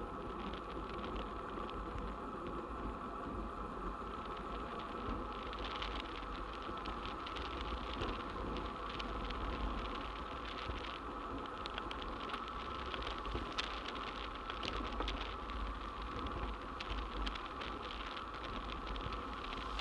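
Bicycle rolling at speed: steady wind rush on the bike-mounted camera's microphone with tyre noise from the grooved asphalt, a steady hum and fine crackle.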